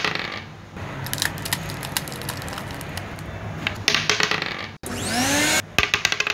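Plastic d20 die clattering and rolling across a hard, glossy stone tabletop: a fast run of small clicks and knocks, then, about five seconds in, a short rising whirr as the die spins on the hard surface, followed by more quick clicks.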